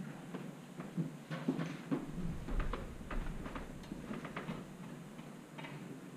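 Scattered light taps, knocks and shuffling as people move about a room, with a low rumble about two seconds in.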